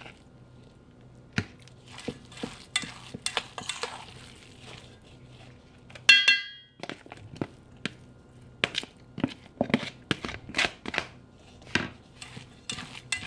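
A metal spoon stirring and scraping a thick minced seitan filling in a stainless steel mixing bowl: scattered clicks and scrapes of metal on metal, with one louder ringing clink about six seconds in.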